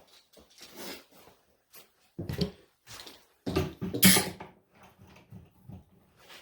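A run of separate knocks and clunks as tools and metal parts are handled, the loudest about four seconds in.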